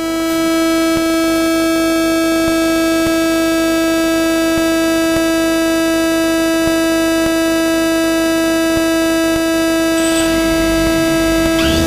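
DJI Phantom 2 quadcopter's motors and propellers spinning at idle on the ground: a steady whine held at one unchanging pitch.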